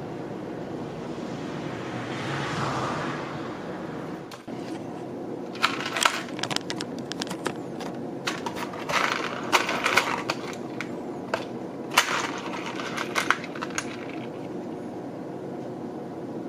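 Small tinplate kit parts clinking and clattering on a tabletop in quick clusters for several seconds, over a steady low hum; a brief soft rustle about two seconds in.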